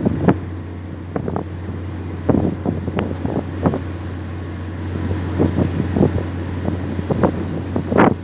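Wind buffeting the microphone in irregular gusts, strongest near the end, over a steady low hum.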